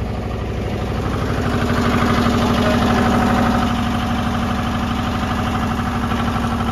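Goldoni 230 compact tractor's air-cooled two-cylinder engine running steadily at idle. It grows louder for a couple of seconds about one and a half seconds in, then settles back.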